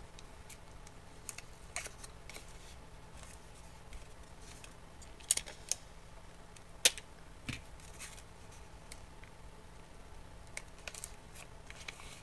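Paper strips handled and taped: faint rustles and small clicks, with a few sharp snaps about five to seven seconds in as clear tape is pulled from a Scotch dispenser and torn off.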